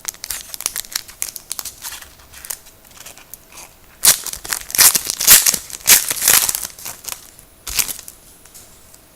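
Wrapper of a trading card pack crinkling and tearing as the pack is opened by hand. The noise comes in bursts and is loudest from about four seconds in, with a last burst near the end.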